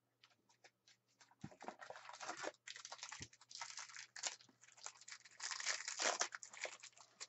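Foil trading-card pack being torn open and crinkled, a run of crackling rustles starting about a second and a half in.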